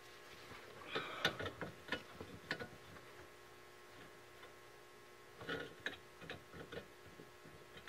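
Faint light clicks and ticks from hands working the repaired lumbar support mechanism inside a pickup seat back. They come in two short clusters, about a second in and again about five and a half seconds in, over a faint steady hum.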